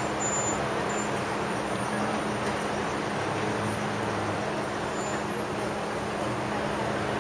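Steady street traffic noise with a constant low hum underneath, and a few short louder sounds about three seconds in.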